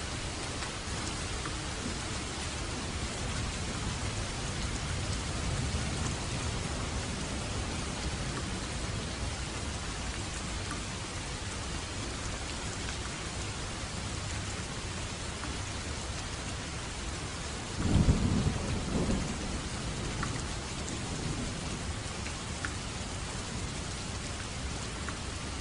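Steady rain falling, with a low roll of thunder building a few seconds in and a sharper, louder thunder crack about three-quarters of the way through that rumbles away.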